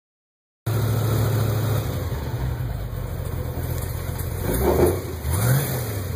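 Boat engine idling steadily, with a brief rise and fall in pitch about five seconds in.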